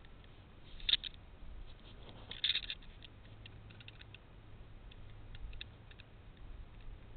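Camera handling noise: scattered small clicks and scratching, with two louder scrapes about one and two and a half seconds in, over a faint steady low hum.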